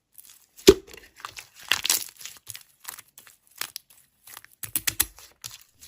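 Hands squishing and poking slime: irregular sticky crackles and clicks, with a sharp pop less than a second in.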